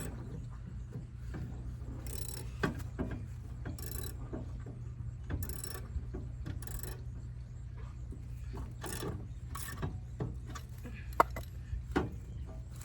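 Jack being worked down under the ride: irregular mechanical clicks and ratcheting rattles, about one a second, over a steady low hum.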